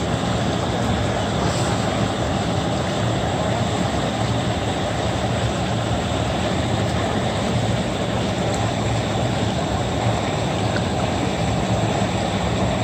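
Steady engine drone: a low, even hum under a broad rush of noise, unchanging throughout.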